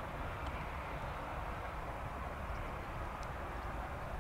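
Airbus A320 jet engines at taxi power: a steady, even rush with a low rumble underneath, unchanging as the airliner rolls along the taxiway.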